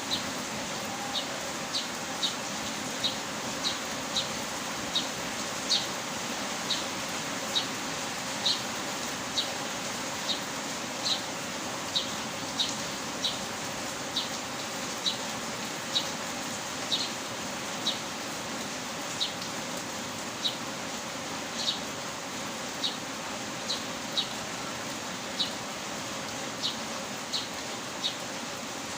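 Steady heavy rain falling, with short high chirps repeating about once a second on top of it.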